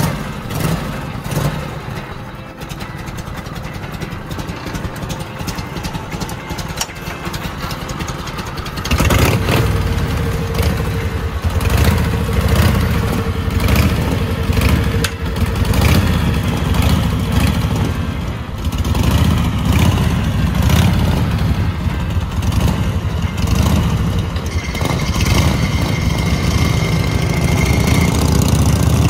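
Vintage Harley-Davidson V-twin motorcycle engines idling with a low, uneven rumble. About nine seconds in the engine sound grows much louder and stays loud, swelling now and then with light revs.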